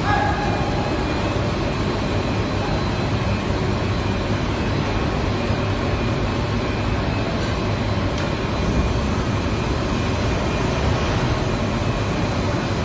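Steady machine noise of a running extrusion laminating machine: a constant hum and whir from its motors and rollers, with faint steady high whines over it.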